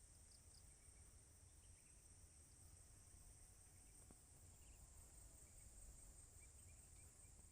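Near silence: a faint, steady high insect drone, with a few faint, short bird chirps scattered through it.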